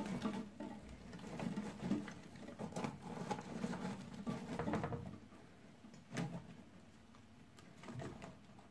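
Hands rustling orchid leaves and bark chips while setting the plants down inside a glass terrarium: irregular soft crackling and small clicks, busier in the first five seconds, with two sharper taps about six and eight seconds in.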